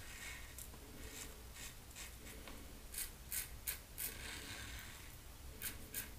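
Double-edge safety razor (Frank Shaving DE razor) scraping through lathered stubble in short strokes, a crisp rasp with each pass. There is a quick run of strokes about halfway through and two more near the end.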